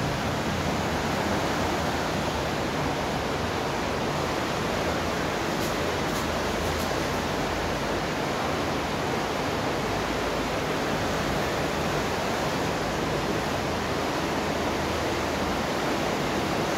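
Steady rushing of water in a large sewer overflow culvert, an unbroken even noise with no change in level.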